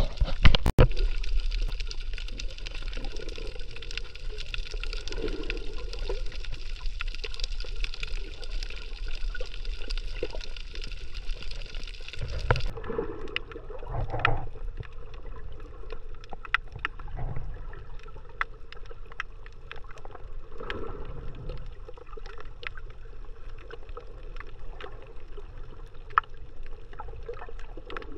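Sea water heard underwater, with a splash as the surface is broken at the start. After it comes a steady muffled wash of water, scattered sharp clicks, and now and then a louder swell.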